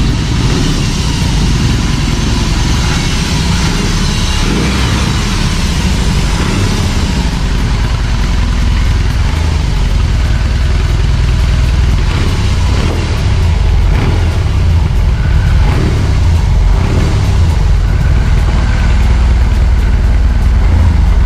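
BMW R18's 1,802 cc boxer twin engine running just after start-up, a steady low rumble that gets slightly louder in the second half.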